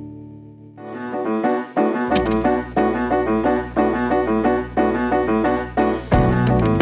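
Background music: a held chord fades out, then a new track begins with a steady, rhythmic keyboard pattern. A bass line joins about two seconds in, and cymbal crashes come near the end.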